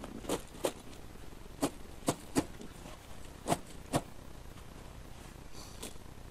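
Super Z steel tire chain clinking as it is handled on the tire: about seven short, sharp clinks in the first four seconds, some in quick pairs, then only low background hiss.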